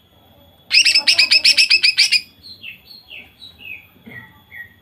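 Female green leafbird (cucak ijo) singing: a loud, rapid-fire burst of about ten sharp, ringing notes lasting about a second and a half, then a run of softer, downward-sliding notes that step lower in pitch.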